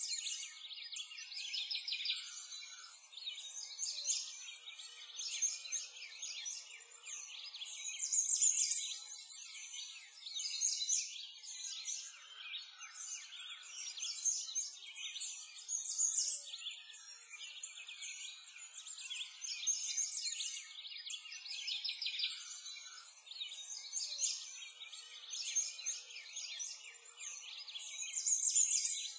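A dense chorus of small birds chirping and singing over one another without pause, high and thin with nothing low beneath it.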